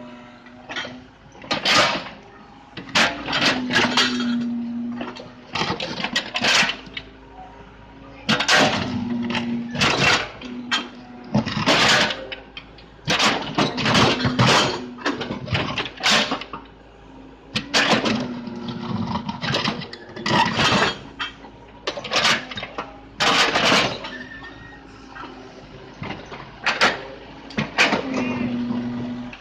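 Excavator working: its diesel engine runs steadily, swelling at times under load, while loud, irregular scraping and clattering noises come every second or two.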